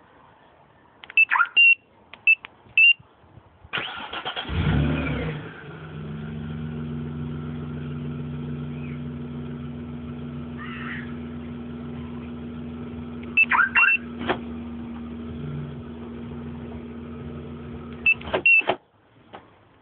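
Short high electronic chirps from a remote-start car alarm, then the Vauxhall Omega's starter cranks briefly and the engine catches with a quick rev and settles into a steady idle. Partway through the idle come more chirps and a click, and near the end a final set of chirps as the engine cuts off suddenly: a remote start and remote shut-down.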